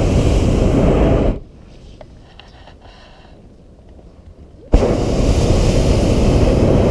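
Hot-air balloon's propane burner firing with a loud rushing roar. It shuts off about a second in, and after some three seconds of near quiet with faint ticks it blasts on again suddenly.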